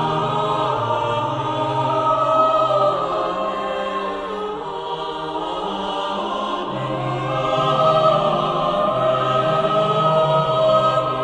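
Background music: a choir singing long held notes that shift slowly from chord to chord.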